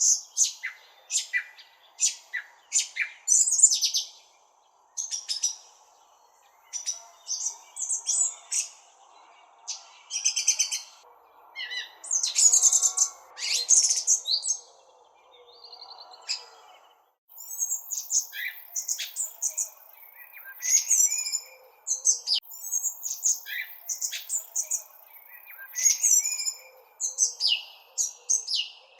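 Small birds chirping: a quick string of short, high chirps and trills, broken by brief pauses.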